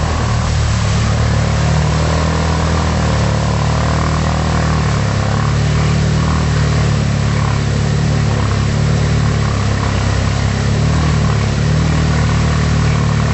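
A motor vehicle's engine held at high revs at full throttle, steady with a slight wavering in pitch and no let-up. The onlookers put the lack of drive down to a broken drive joint (CV joint).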